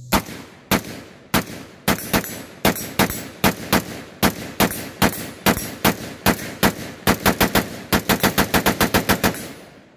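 Springfield Armory SAINT AR-15 pistol with a 7.5-inch barrel firing 5.56 NATO in a long string of semi-automatic shots. The shots come about one every half second at first, then quicken to rapid fire of several a second, and stop shortly before the end.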